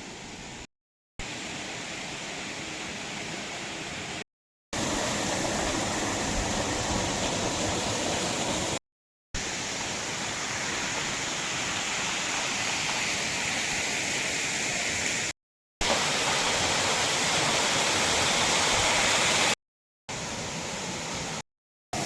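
Waterfall's steady rushing noise, heard in several short clips joined by abrupt cuts with brief silences between them.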